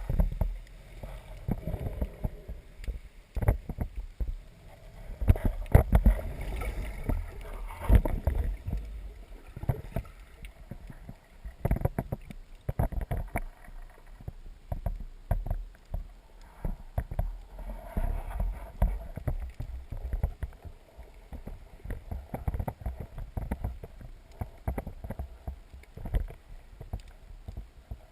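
Irregular knocks and low thumps with a low rumble, typical of a small boat rocking on the water while someone fishes from it.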